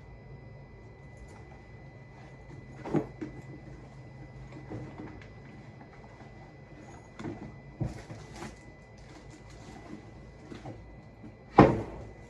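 Scattered knocks, clicks and clunks of belongings being handled and packed into a bag, with one sharp, louder knock near the end.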